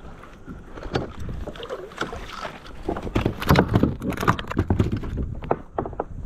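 Handling noise on a plastic sit-on-top kayak as a fish is landed: a run of knocks and bumps against the hull, busiest about three to five seconds in.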